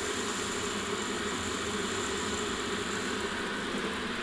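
Electric kettle heating water towards the boil: a steady rushing hiss.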